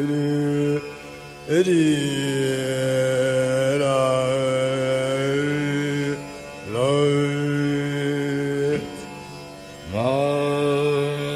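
Male dhrupad vocal alap in Raga Malkauns: long held notes, each reached with an upward slide, in four phrases broken by three short pauses for breath.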